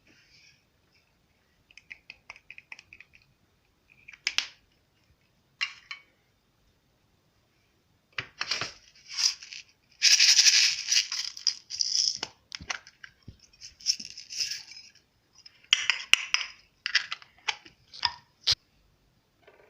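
Slime being squished and stretched by hand, with irregular sticky crackles and pops separated by short silences and a longer run of dense crackling about ten seconds in.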